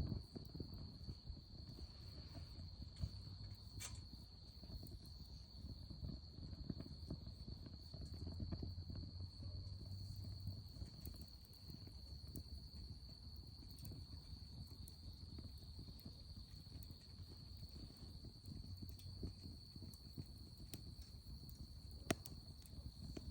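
Wood fire burning in a Solo Stove Campfire, its double-walled steel firepit set up for secondary combustion: a fluctuating low rumble with a few sharp crackles, one about four seconds in and one near the end. A steady high insect trill, like crickets, runs underneath.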